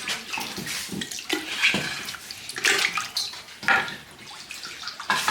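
Water running and splashing unevenly, with many short sharp splashes.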